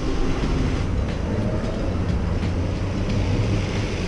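Steady low rumble of road traffic, with a city bus running close by and tyres hissing on the rain-wet street.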